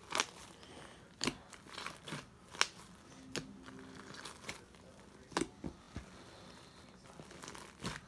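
Fingers squishing and poking a thick purple slime with small foam beads close to the microphone: about ten sharp, wet pops and crackles at uneven intervals as air pockets in the slime burst.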